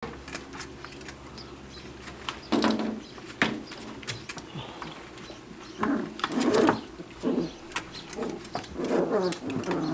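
Five-week-old puppies whimpering and squeaking in short cries, mixed with light clicks and taps.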